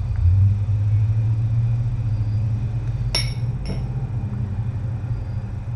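Two short metallic clinks about half a second apart, a little past halfway, over a steady low hum.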